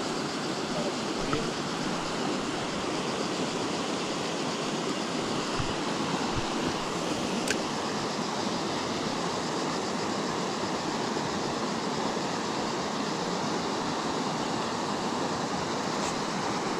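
River water rushing over a rocky riffle: a steady, even rush with one sharp click about seven and a half seconds in.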